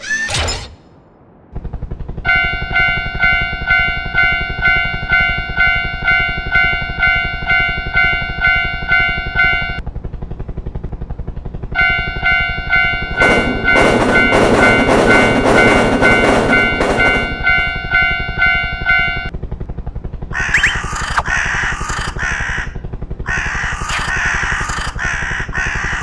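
Japanese railroad crossing bell ringing 'kan-kan' at about two strokes a second, in two long spells with a short pause between, over a steady low hum. A train rushes past during the second spell, and crows caw repeatedly near the end.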